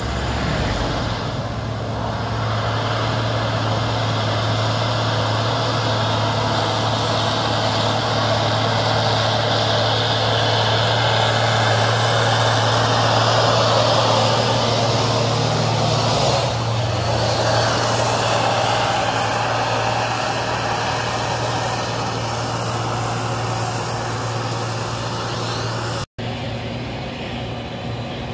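Heavy diesel truck with a tandem-axle trailer driving past close by: a steady low engine drone under tyre and road noise that swells, loudest about halfway through, then eases. The sound drops out for an instant near the end.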